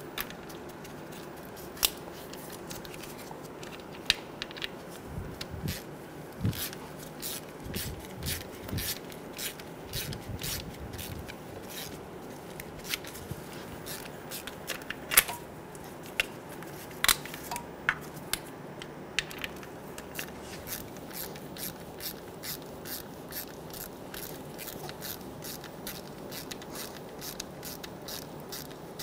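Hand ratchet clicking as the engine mount studs are snugged down, in runs of quick clicks with a few louder metal clinks of the socket. Near the end the clicks come fast and even.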